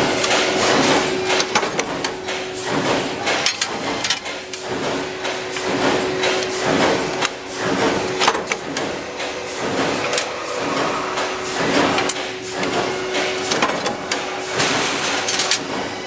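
Flywheel-driven mechanical punch press running with a steady hum, stamping metal lock faceplates with repeated sharp metallic strokes, roughly one a second.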